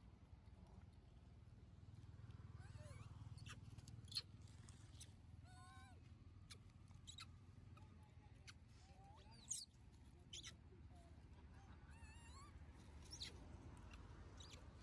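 Faint, short squeaking calls from young macaques, scattered through, some bending up and down in pitch, with a few sharp clicks.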